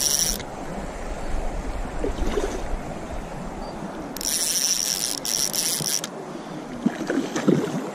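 Shakespeare spinning reel's drag buzzing as a hooked trout takes line: once briefly at the start, then for about two seconds midway. Stream water runs steadily underneath.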